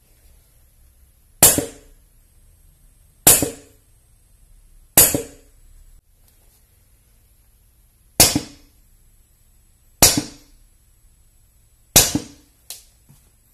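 Six single shots from a TM VSR-10 airsoft sniper rifle with a Wolverine bolt at 2.8 J, each a sharp crack with a short ring-out, spaced about two seconds apart. The first three go through a Mancraft Mjolnir amplifier in suppressor mode and the last three through a 30x150 mm silencer with a 3D-printed inlay. A faint click follows shortly after the last shot.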